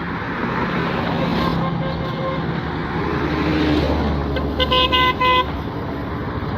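Road traffic passing, with a vehicle horn beeped about four times in quick short toots just past the middle.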